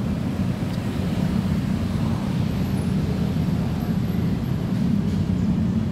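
Steady low rumble with no breaks or distinct events.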